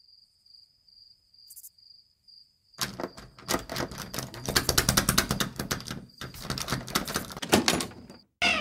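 Crickets chirping in a steady pulsing trill. About three seconds in, a loud, dense, fast clatter of clicks and knocks starts over it and cuts off suddenly shortly before the end.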